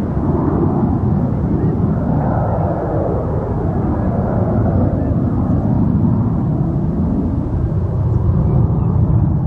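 Jet aircraft engine noise: a loud, steady low rumble with slow swells in its tone.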